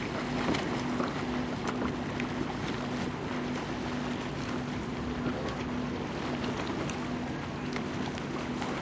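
A motorboat engine running steadily with an unbroken hum, over a wash of wind and water noise.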